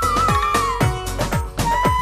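Instrumental interlude of a Bengali song: a high lead melody, held and ornamented, over a steady drum beat whose low strokes drop in pitch.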